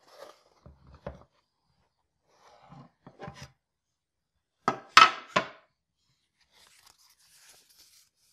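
Handling of a cardboard product box on a wooden table: soft scrapes and taps as the lid is worked loose and lifted off, then a quick cluster of sharp knocks about five seconds in, the loudest sound, as the lid is set down. Faint paper rustling near the end as the instruction booklet is taken out.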